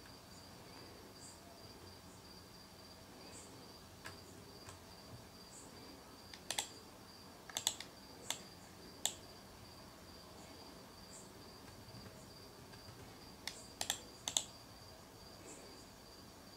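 Sharp clicks of a computer mouse, some coming in quick pairs, in two short runs: one about a third of the way in and one past three quarters. Under them run a faint, steady high-pitched whine and faint short high chirps every second or two.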